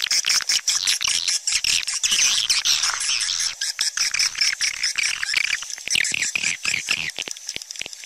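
Swiftlet calling sound: a dense, continuous chatter of rapid clicking chirps and twitters, the kind of call track played in swiftlet houses to draw the birds in to roost and nest.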